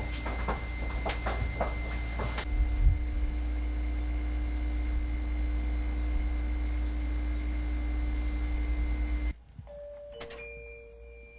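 Equipment in the cab of an old Choshi Electric Railway railcar running: a steady low rumble with a steady high whine, and a few clicks and knocks in the first two seconds. About nine seconds in, this cuts off to a quieter sound with a falling two-note chime.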